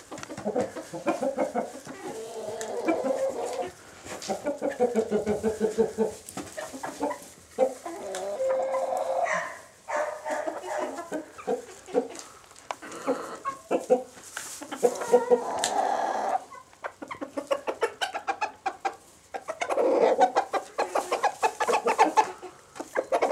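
A flock of chickens clucking and calling, in bouts of quick repeated clucks a few seconds long with short pauses between.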